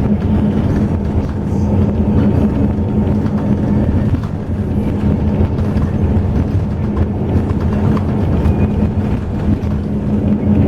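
Highway coach running on the road: a steady low engine drone with a constant hum, mixed with road noise.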